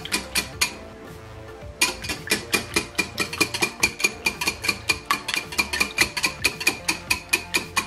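Wire whisk beating eggs in a ceramic bowl: quick, even clicks of the wires striking the bowl's sides, about five a second, with a pause about a second in.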